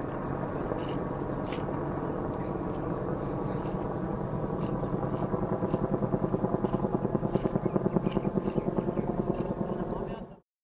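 An engine drones steadily; from about halfway through it takes on a fast throbbing beat, roughly six or seven pulses a second, then cuts off suddenly near the end.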